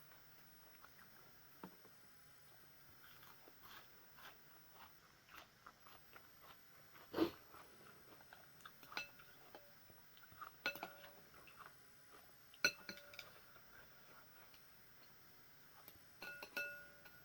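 Faint clinks and taps of a spoon against a soup bowl, a few of them ringing briefly, with a louder knock about seven seconds in.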